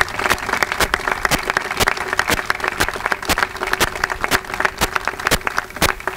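Audience applauding, with one clapper standing out above the crowd's scattered clapping at about two claps a second.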